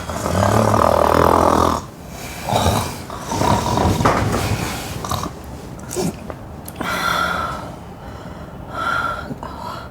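A sleeping person snoring loudly: one long snore lasting nearly two seconds at the start, then several shorter snores.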